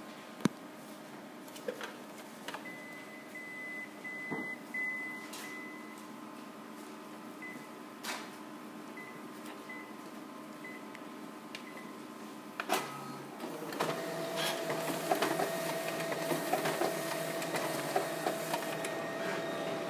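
Konica Minolta Bizhub C550 colour copier: several short touch-panel beeps as settings are chosen, a few clicks, then about two-thirds of the way in the machine starts up and runs as a copy job begins, a steady mechanical whir with a held hum and quick small rattles.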